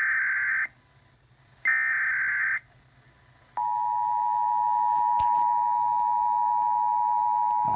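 Emergency Alert System broadcast: the last two of the three SAME digital header bursts, each a harsh buzzing data chirp about a second long with a second's gap between them. About three and a half seconds in, the steady two-tone EAS attention signal starts and holds without a break.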